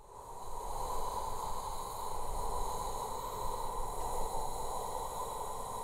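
A steady, airy rushing noise that fades in at the start and holds even, with faint high steady tones over it.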